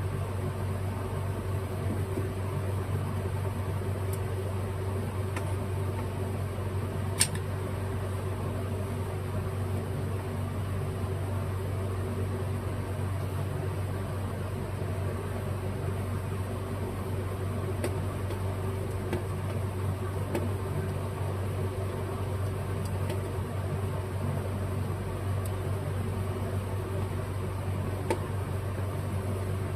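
Steady low mechanical hum of a running fan-like appliance, with one sharp click about seven seconds in and a couple of faint ticks later.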